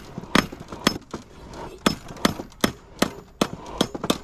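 Hand hammer striking hot steel on an anvil while forging a knife blade: a run of sharp metallic blows, a little over two a second, some heavier and some lighter.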